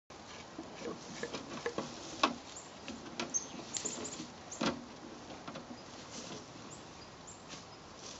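Clicks, taps and scratching from a clear plastic pet carrier with a snap-on lid as it is opened and young short-tailed weasels scrabble inside it. The sharpest knocks come about two seconds in and again about four and a half seconds in.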